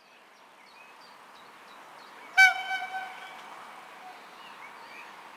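Locomotive horn from an approaching train, one short single-pitched blast about two and a half seconds in, over a low rail rumble that slowly builds. Birds chirp faintly.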